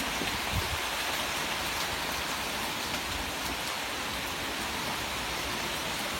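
Heavy rain during a thunderstorm, falling as a steady, even hiss, with individual drops striking close by.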